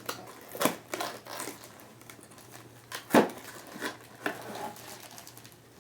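Plastic packaging crinkling, with scattered clicks and knocks as the figurine's pieces are handled; the loudest knock comes about three seconds in.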